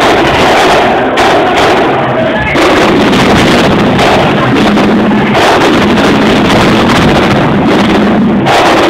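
Marching band playing brass and drums, very loud, with the recording overloaded and distorted. The band's pitch drops about two and a half seconds in.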